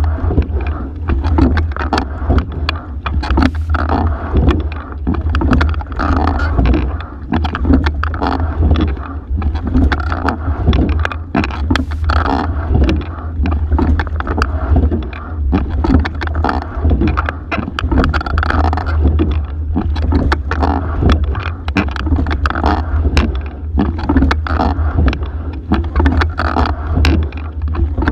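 Single scull being rowed, heard from a camera mounted on the boat: knocks and clicks from the oars and rigging, and water along the hull, rising and falling about once every two seconds with each stroke, over a steady low rumble.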